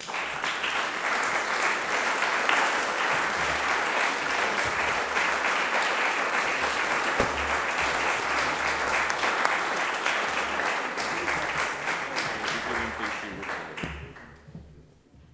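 Audience applauding. The clapping starts all at once, holds steady, and dies away near the end.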